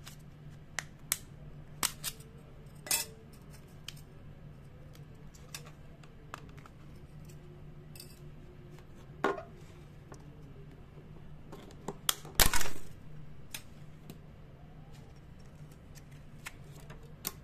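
A 3.5-inch floppy disk being taken apart by hand: scattered clicks, taps and scrapes of its metal shutter and plastic shell, with a louder cracking snap about twelve seconds in. A steady low hum runs underneath.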